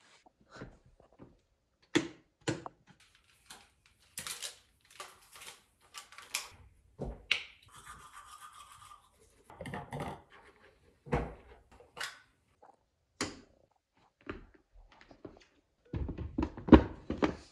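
Scattered handling noises in a room: a run of separate knocks, taps and scrapes, then a denser stretch of rubbing and rustling near the end.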